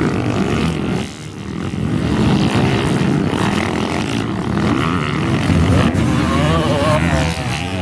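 Several motocross dirt bike engines running hard, revving up and down as the bikes race around the track, with the pitch swinging up and down near the end.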